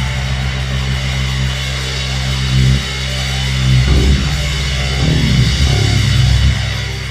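Rock music with electric guitar and bass, fading toward the end.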